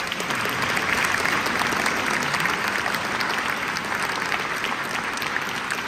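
Audience applauding in a large stone church. The clapping starts all at once, is fullest about a second in, and then slowly thins out.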